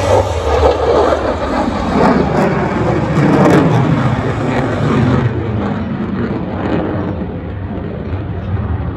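Roar of an F-22 Raptor's twin Pratt & Whitney F119 turbofans as the fighter climbs steeply away overhead, fading gradually in the second half.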